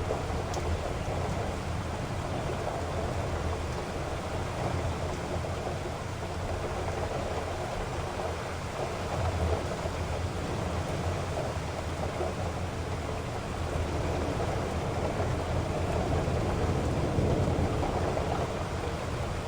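Heavy rain falling steadily: a dense, even wash of noise with a strong low end, swelling slightly now and then.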